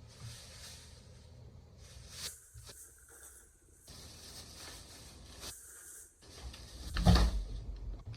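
Faint handling noises close to the microphone, with a few soft knocks and one loud, low thump about seven seconds in.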